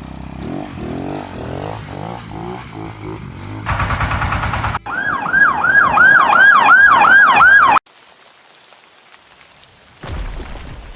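Cartoon police-car siren wailing up and down about three times a second for about three seconds, then cutting off suddenly. Before it comes a revving motor sound rising in pitch and a brief loud buzzing blast. About ten seconds in there is a low rumble.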